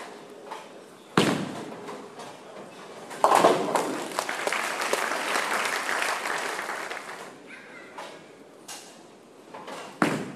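Tenpin bowling: a heavy thud about a second in, then a bowling ball crashing into the pins about three seconds in, with clattering noise that fades over about four seconds. Another heavy thud near the end as a ball lands on the lane at release.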